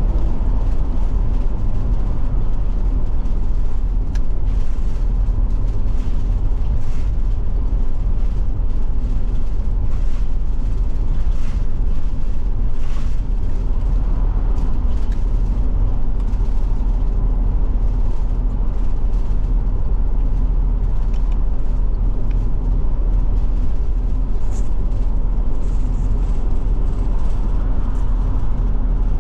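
Steady engine and road noise of a Forest River Forester Class C motorhome driving along the highway, an even low rumble with no change in pace.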